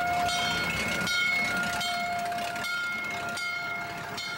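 Vintage fire engine driving past with its bell struck over and over, a steady ringing tone renewed by each strike over the low rumble of the engine.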